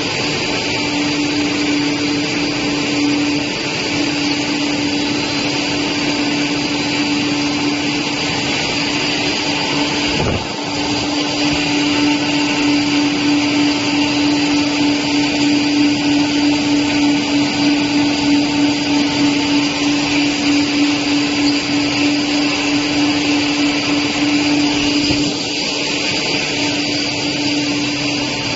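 Four-screw cast stretch film extrusion line running: a steady, loud machine hum with a constant mid-pitched tone over a hiss. It dips briefly about ten seconds in.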